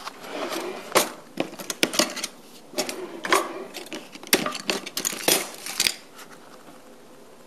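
Hand rummaging through a drawer of tools and utensils: metal items clinking and clattering in quick, irregular knocks that stop about six seconds in.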